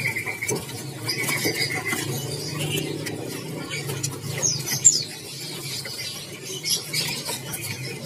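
Small caged songbirds chirping and squeaking in short high calls, with a whistled note in the first two seconds and the sharpest chirp just before five seconds in, over a steady low hum.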